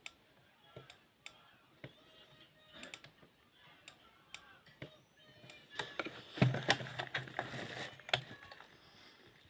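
Scattered sharp clicks of switches and relays on a radio remote control being tested, with a louder low buzzing stretch of about a second and a half just past the middle.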